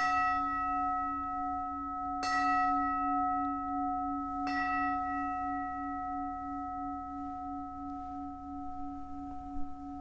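Altar bell struck three times, a couple of seconds apart, each strike ringing on in several steady tones that slowly fade. It is rung at the elevation of the chalice after the consecration at Mass.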